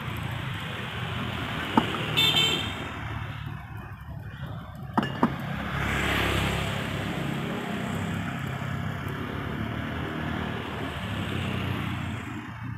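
Roadside motor traffic running past, with a few sharp metal clanks of a spatula against the wok of sizzling fried rice (about two seconds in, and twice near five seconds). A short high ringing note sounds just after two seconds.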